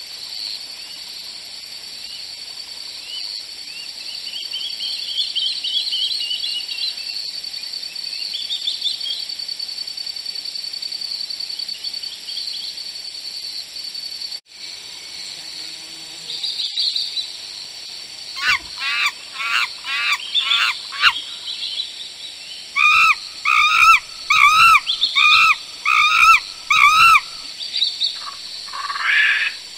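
Outdoor bird calls: a steady high hiss with faint scattered chirps, then, after an abrupt break about halfway through, a run of quick falling chirps and a loud series of repeated calls about twice a second near the end.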